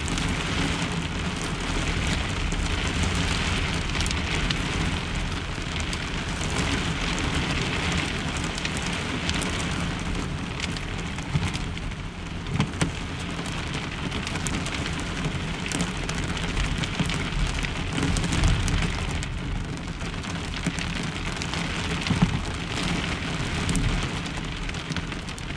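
Heavy rain pelting a pickup truck's camper shell, heard from inside under the shell, steady and loud, with a few sharp knocks scattered through.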